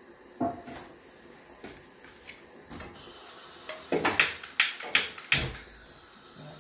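Cookware and utensils knocking and clattering: a few light knocks, then a quick run of about six sharp clacks between about four and five and a half seconds in. A faint steady hiss starts about three seconds in.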